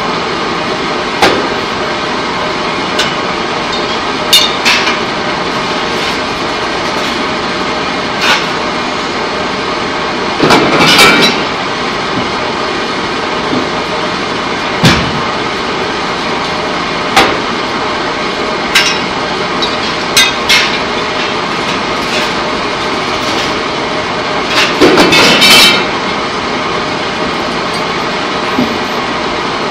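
Pipe coating line machinery running with a loud steady noise, broken by irregular sharp metallic clanks every one to three seconds. There are two longer clattering bursts, one near the middle and one near the end.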